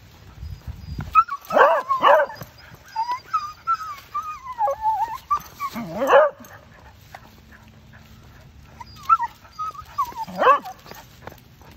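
Dog whining excitedly in a high, wavering voice, with louder yelping cries about two seconds in, near the middle and near the end: excitement at spotting a friendly dog.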